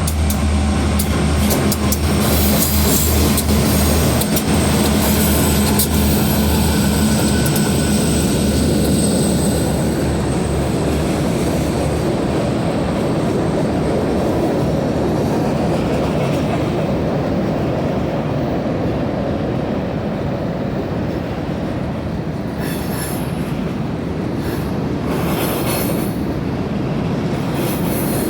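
Train crossing a rail bridge, its wheels rolling over the rails in a steady loud rumble. A steady low hum and a thin high whine run through the first ten seconds, and there are a few louder clattering stretches near the end.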